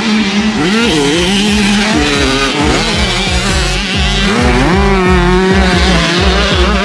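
Music with a steady beat over a held low note, with a melody line moving above it.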